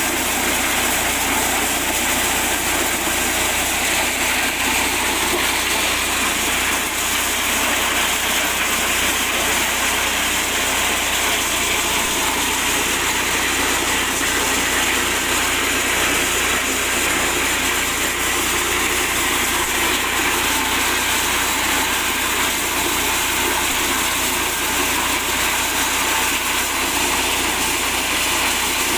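Mini corn sheller driven by an 8 hp petrol engine, running steadily.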